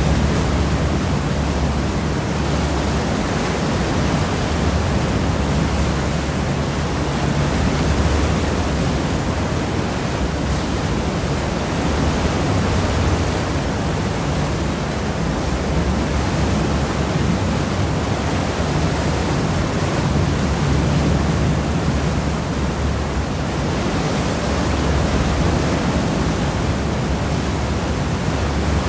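Seawash churning in the wake off the stern of a cross-channel ferry: a steady, loud rushing of water with a deep rumble underneath, swelling and easing slightly.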